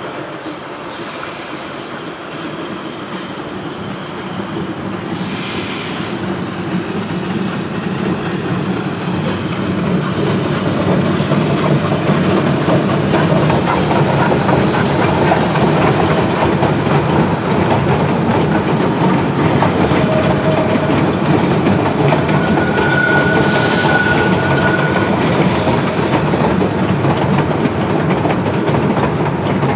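Denver & Rio Grande Western narrow-gauge 2-8-0 steam locomotive No. 315 working past with its train over a steel bridge. The locomotive's exhaust and running gear grow louder over the first ten seconds or so, then give way to a steady clatter of wheels on rail as the freight cars and coaches roll by. A brief high squeal comes about two-thirds of the way through.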